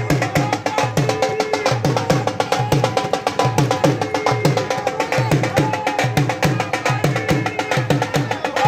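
Dhol drum played in a fast bhangra rhythm: heavy bass strokes about twice a second under quick, crisp stick strokes, with a melody running above the beat.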